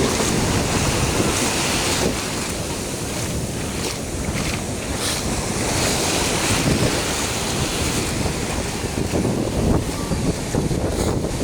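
Wind buffeting the microphone as a steady low rumble over the wash of surf.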